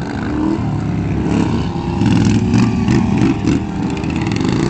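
Racing lawnmower engine running hard on a lap, its pitch shifting as it revs, getting louder about two seconds in as it comes closer.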